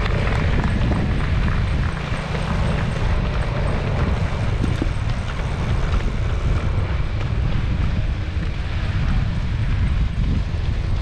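Steady low rumble of wind buffeting the microphone, mixed with outdoor road noise.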